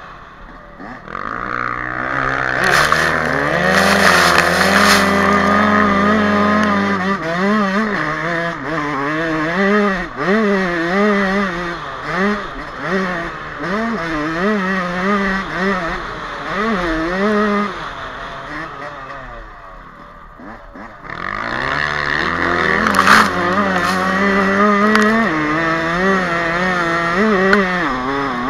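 Yamaha YZ125 two-stroke dirt bike engine with an HGS expansion-chamber exhaust, heard from on board, revving up and down repeatedly as the throttle is worked along a sandy trail. It drops off and quietens for a couple of seconds about two-thirds of the way through, then picks up again, with a few loud hissing rushes at the highest revs.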